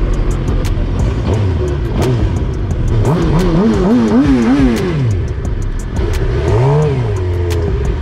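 Motorcycle engines running under way. Their pitch rises and falls with a quick wavering about three to five seconds in, and again briefly near seven seconds, as the throttle is worked.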